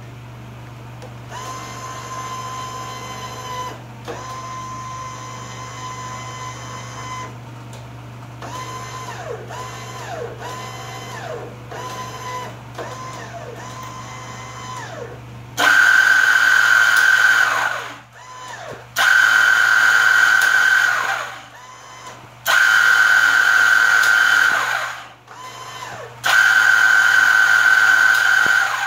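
Electric drive of a Tailgunner Dillon Aero M134 X minigun mount being tested. A small motor whines steadily in two stretches of about three seconds, then in a run of short rising and falling pulses as the elevation is worked. From about halfway there are four loud bursts of whirring, each two to three seconds long, starting and stopping sharply as the trigger spins the barrel cluster up and cuts it off.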